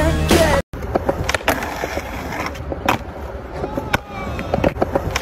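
Skateboard wheels rolling over concrete, with several sharp clacks of the board against the ground. A song with singing cuts off in the first half second.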